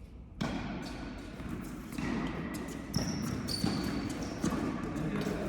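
Tennis balls knocking off racquets and bouncing on an indoor court, a sharp knock about every second, with a few short high squeaks between them.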